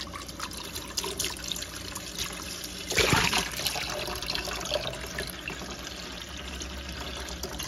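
Water running and splashing while a jar of sprouting seeds is rinsed at a sink, with a louder gush about three seconds in.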